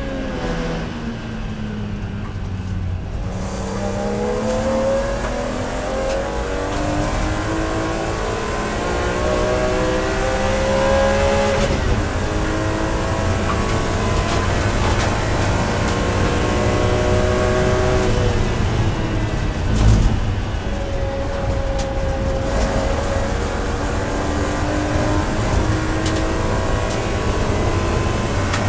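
BMW E46 M3's S54 3.2-litre straight-six race engine at high revs, heard from inside the cabin, pulling hard with its pitch climbing steadily. The pitch drops briefly about 12 s in and again about 19 s in before climbing again, and a single thump comes about 20 s in.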